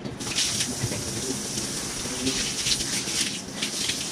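Water running from a wall tap into a tiled ablution trough, splashing as hands are washed for wudu. The tap is turned on about a quarter second in and runs steadily.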